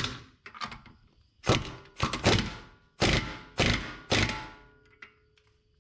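Hammer blows on metal, about eight irregular strikes with a short metallic ring after them, driving parts into place on a BMW 325xi's axle and hub assembly after a CV axle swap.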